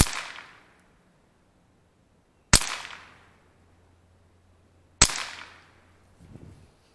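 Three shots from a semi-automatic Mossberg International 702 Plinkster .22 LR rifle firing 40-grain solid (full metal jacket) rounds, evenly spaced about two and a half seconds apart. Each is a sharp crack trailing off in a short echo.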